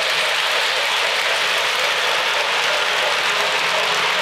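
O-gauge model trains running on Lionel FasTrack: a steady rolling clatter of metal wheels on the track, mixed with the whir of the locomotives' motors and gears.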